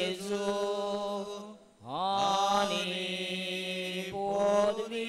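Slow devotional chanting in long held notes. There is a short break about two seconds in, and then the voice slides up into the next held phrase.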